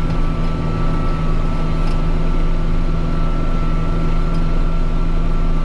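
Kubota M6040 tractor's four-cylinder diesel engine running steadily as the tractor drives along plowing snow, a constant even drone with no change in speed.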